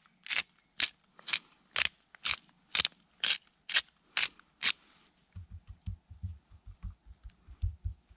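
Wooden spice mill being twisted over raw quail, grinding with a sharp crunch about twice a second for roughly five seconds. After that comes a quick run of soft, low thumps as a hand handles the seasoned birds on the wooden board.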